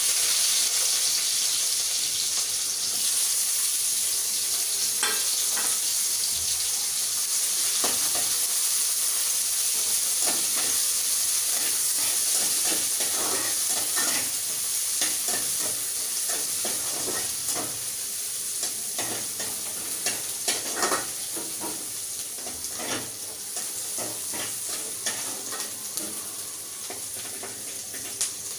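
Sliced onion frying in hot oil in a wok, sizzling loudest at the start and slowly settling, while a spatula scrapes and clicks against the pan as it is stirred.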